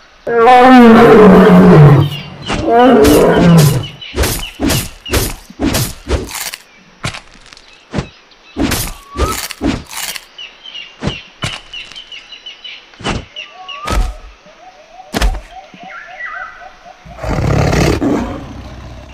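Sound effects of a big-cat fight: a loud big-cat roar falling in pitch at the start and a second shorter one, then a run of sharp hits, about a dozen at uneven spacing, as the lion mauls the tiger, and another loud growl near the end.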